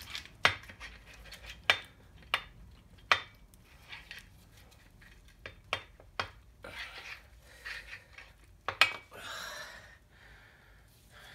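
Loose metal engine parts and tools clinking and knocking as they are handled, about eight sharp separate clinks at irregular intervals, with a short rustling noise just after the last loud one near the end.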